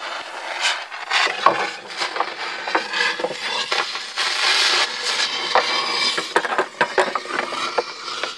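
A small firework burning inside a clear plastic jar: a dense hiss of sparks with many sharp crackles. It starts suddenly and dies down at the end.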